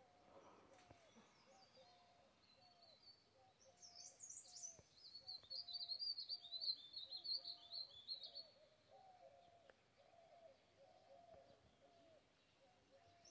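Faint wild birdsong: a fast, high twittering song from about three and a half to eight and a half seconds in, over a short low note repeated about twice a second.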